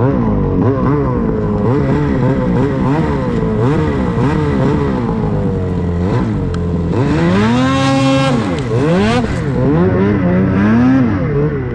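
Ski-Doo Summit 850 E-TEC Turbo R's turbocharged two-stroke snowmobile engine under way, its pitch swinging up and down as the throttle is worked, with one big rev up and back down about seven to nine seconds in.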